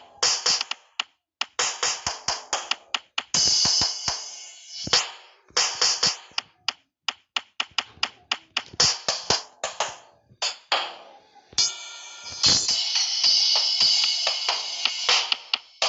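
Sampled drum kit sounds from the Real Drum phone app, tapped out by hand: uneven quick runs of drum hits, with cymbals ringing out about three seconds in and again for several seconds from about twelve seconds in.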